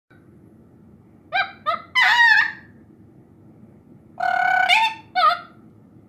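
Mealy Amazon parrot squawking in a loud series of five calls: two short squawks, a longer call with wavering pitch about two seconds in, a long, fairly level honking call about four seconds in, and a last short squawk.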